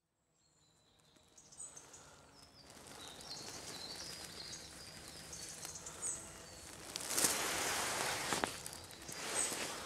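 Woodland birds singing in the morning, short high chirps over a faint outdoor hiss, fading in from silence. A louder rustling comes about seven seconds in and lasts a second or two.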